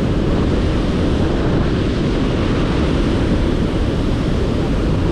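Steady rushing of Burgess Falls, a large waterfall, mixed with wind buffeting the microphone.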